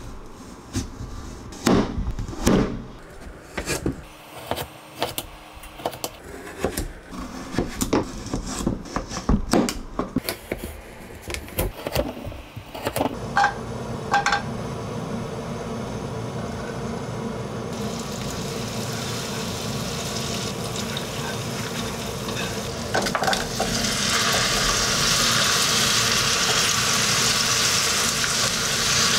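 A knife chopping through kabocha squash on a cutting board, many sharp cuts one after another. Then butter melts in a frying pan and the squash pieces sizzle in the butter, the sizzle getting louder toward the end.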